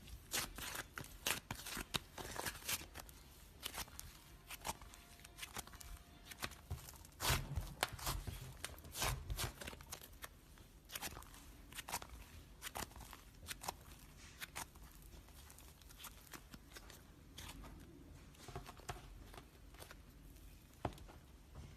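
Slime being played with by hand, giving irregular sharp clicks, pops and crackles, with a few duller low thuds about halfway through.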